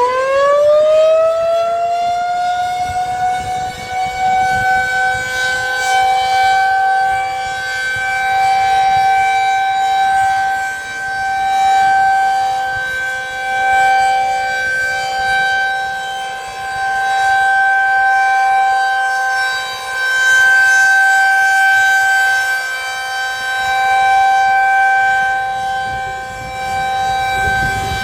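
Federal Signal 2001-SRNB rotating outdoor warning siren winding up from just before the start and reaching full pitch within about three seconds. It then holds one steady tone, the steady signal of its monthly test. The loudness swells and fades every few seconds as the rotating head sweeps past.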